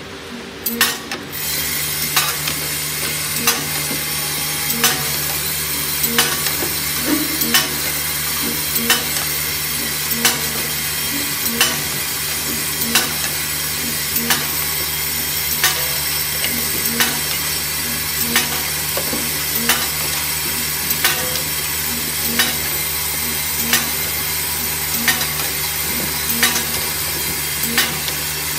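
Paint roller handle iron-ring inserting machine running after it starts up just over a second in: a steady mechanical hiss and hum with regular sharp clicks, about one a second, as it works through its cycle.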